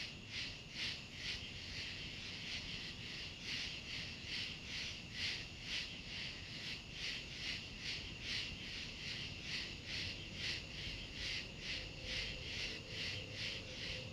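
Steady rhythmic chirping, about two or three high pulses a second, like a calling insect or frog chorus, over faint low background noise.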